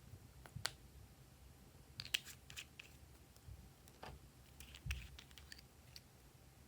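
Glossy slime being worked by hand, giving faint, scattered sticky clicks and pops, with a cluster about two seconds in and another near the end.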